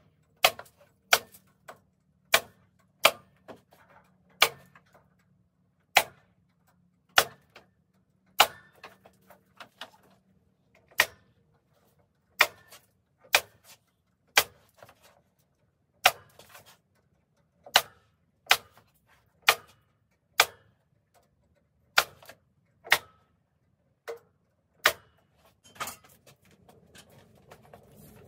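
A staple gun fastening wire mesh to a pressure-treated wooden frame, firing one sharp shot about every second, some two in quick succession.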